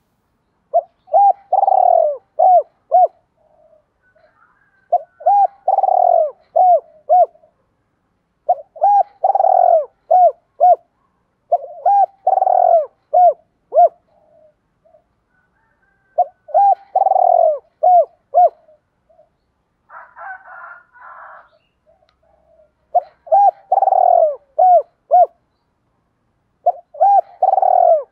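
Spotted dove cooing, about seven phrases, one every four seconds or so. Each phrase is a few short coos around a longer falling note. It is a decoy bird's call, meant to provoke other males to answer and fight.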